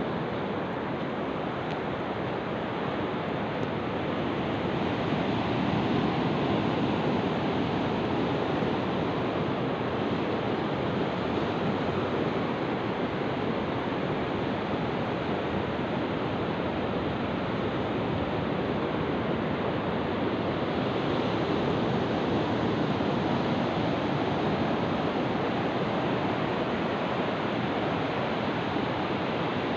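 Ocean surf breaking and washing up a sandy beach: a steady rush of waves that grows a little louder about five seconds in.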